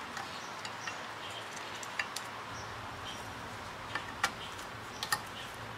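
A handful of small sharp clicks of needle-nose pliers and small metal parts against a rectifier's metal plate as a thermal cutoff switch is repositioned, the loudest about four seconds in, over a steady low hiss.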